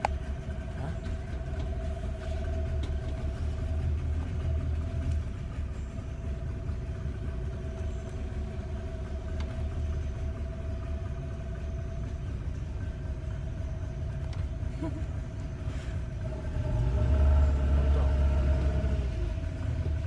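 A small boat's outboard motor running steadily, a low rumble with a constant hum over it; the rumble swells for a couple of seconds near the end.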